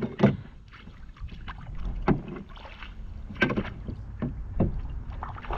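Low wind rumble on the microphone, broken by four short, sharp sounds spaced about a second apart while a hooked bass is brought in beside a canoe.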